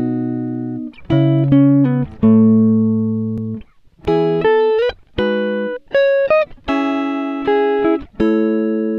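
Background music: a guitar playing plucked chords and single notes, each ringing out and dying away, with a few sliding notes.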